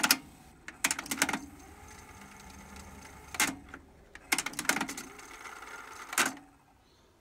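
Transport mechanism of a Technics RS-TR373 cassette deck clicking and clunking, five times in all, as its stop, fast-forward and rewind buttons are pressed. Between the clicks comes a faint steady whir of the tape being wound.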